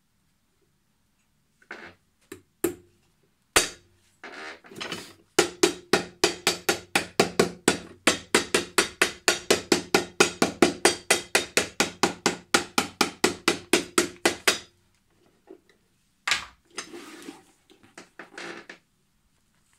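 A hammer driving metal hobnails into the leather sole of a boot: a few separate taps, then a fast, even run of strikes, about four or five a second, for about nine seconds. Near the end there is a single knock and some handling of the boot.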